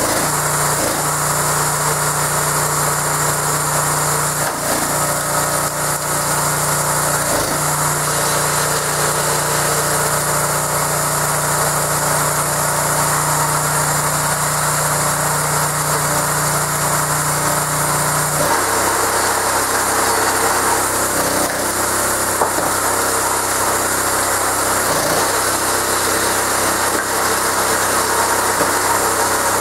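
Möller 6.5 hp 196 cc single-cylinder petrol engine running steadily, driving the MTZ hydraulic gear pump of a homemade log splitter. About two-thirds of the way through its note drops lower and turns rougher.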